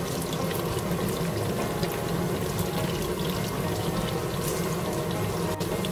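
Chunks of pork back fat and sliced green onion sizzling steadily in hot oil in a wok as the fat is fried to render out its grease.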